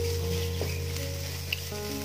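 Soft background music over the faint sizzle of an onion and boiled-egg filling frying in a nonstick pan. A wooden spatula scrapes through it twice.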